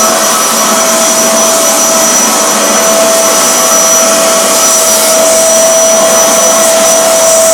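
Eureka Forbes Euroclean X-Force 1400-watt canister vacuum cleaner running steadily, with a constant motor whine over the rush of airflow.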